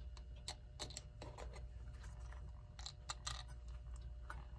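Small metal parts of an electric clock movement clicking and tapping lightly as they are handled and fitted back into place, a dozen or so scattered light clicks.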